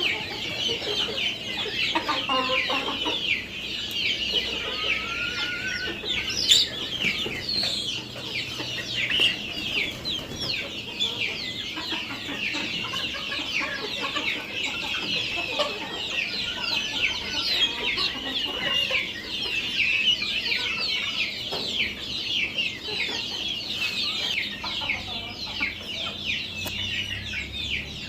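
A flock of desi (native) chickens calling all at once: a dense, unbroken chatter of many short, high, overlapping calls.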